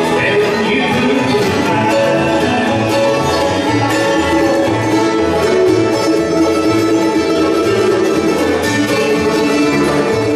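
Live bluegrass band playing an instrumental passage on mandolin, banjo, acoustic guitar, dobro and upright bass, the bass keeping a steady pulse under the picked strings.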